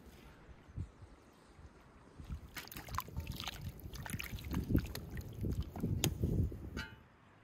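Slotted metal skimmer stirring chunks of beef heart in water in a cast-iron cauldron: sloshing and splashing, with clinks and scrapes of the skimmer against the pot. The stirring starts about two seconds in and ends with a ringing clink near the end.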